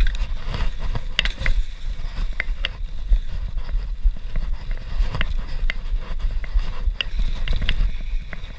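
YT Industries Capra CF mountain bike descending rough dirt singletrack at speed, heard from an onboard camera: a steady low rumble of wind and trail buzz with frequent sharp clicks and rattles from the bike.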